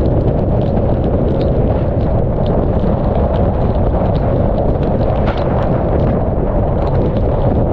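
Hurricane eyewall wind buffeting a roof-mounted GoPro MAX's microphones: a loud, steady, deep rumble of wind noise, with raindrops striking the camera as scattered ticks.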